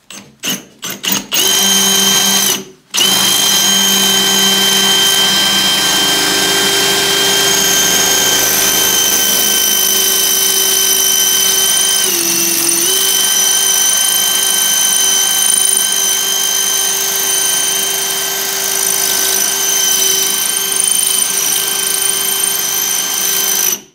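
Cordless drill started in a few short trigger blips, then run at steady high speed with one brief stop near the start and a short dip in speed about halfway through as it is loaded. Its bit is grinding into hard porcelain wall tile, which it barely cuts.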